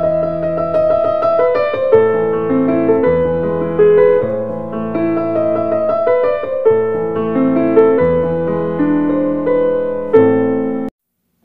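Background piano music, a melody of held notes, which stops abruptly near the end.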